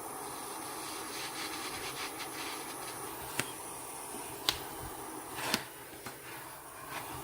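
Small refillable gas blow torch hissing steadily as it heats brass for soldering, with some light scraping and three sharp clicks about a second apart midway through.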